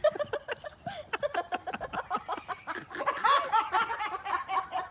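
Laughter in quick repeated bursts, growing louder about three seconds in.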